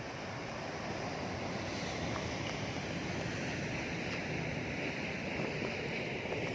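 Ocean surf washing steadily against the rocks below a sea cliff, with wind on the microphone.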